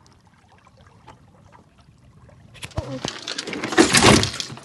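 Water lapping and trickling along a sailboat's hull under sail. About two and a half seconds in, it turns into a loud, crackling rush of water that swells and then fades.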